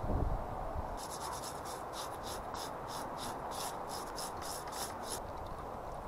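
Steel trowel rubbing and scraping over wet cement, a steady rasp with quick strokes about four a second from about a second in until shortly after the five-second mark.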